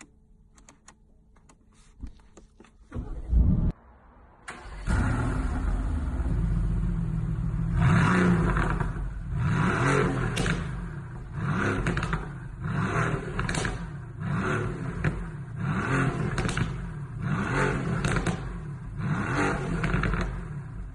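Mercedes-AMG GT twin-turbo V8 being started and revved through its exhaust: a short loud burst about three seconds in, then from about four and a half seconds the engine runs loudly and is blipped again and again, revs rising and falling roughly once a second.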